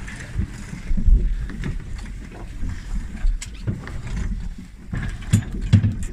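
Wind rumbling on the microphone aboard a boat at sea, with a few sharp knocks in the second half.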